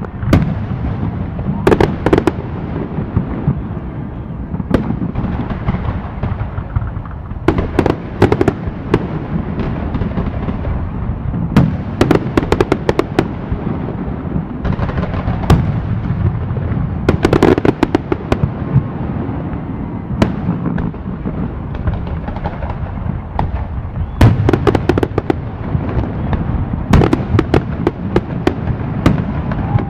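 Fireworks going off: a continuous low rumble of distant bursts, with clusters of sharp cracks every few seconds.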